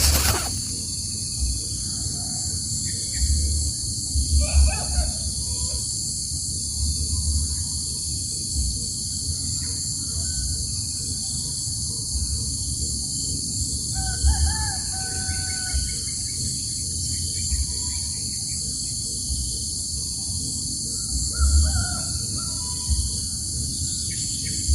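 Steady high-pitched insect chorus, like cicadas or crickets, with a few short faint bird calls about four, fourteen and twenty-one seconds in, each coming with a low rumble.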